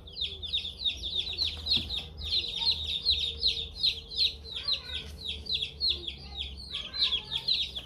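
Many newly hatched chicks peeping without pause: rapid, overlapping high-pitched cheeps, several a second, over a low steady hum.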